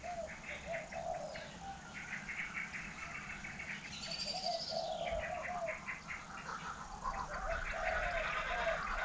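Birds calling: groups of short, curved low notes repeating over a rapid high chirping.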